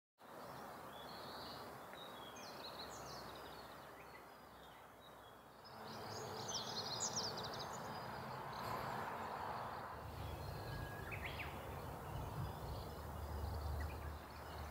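Open-air ambience: wild birds chirping now and then over a steady soft hiss. A low rumble joins in about two-thirds of the way through.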